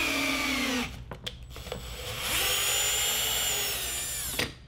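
Cordless drill driving a thread tap into a 3D-printed nylon block; the motor whine drops in pitch as it stops about a second in. After a pause with a few clicks, the drill runs again for about two seconds to back the tap out, then stops.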